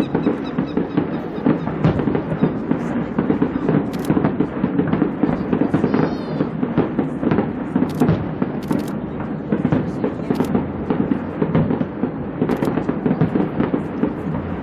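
Fireworks display: a dense, continuous crackle of bursting shells, with several sharper bangs standing out over it.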